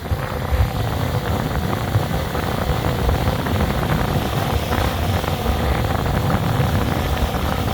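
Gusty wind buffeting the microphone in a loud, uneven rumble, with the steady hum of a DJI Mini 4 drone's propellers faintly underneath.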